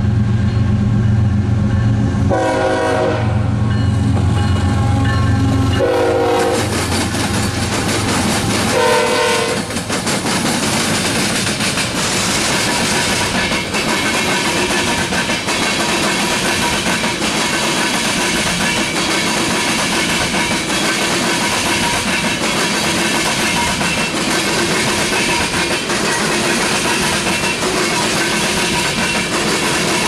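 GE ES44AC diesel locomotives passing under power with a deep engine drone, the horn sounding three blasts in the first ten seconds. Then a long string of ethanol tank cars rolls by with a steady rumble and clickety-clack of wheels over the rail joints.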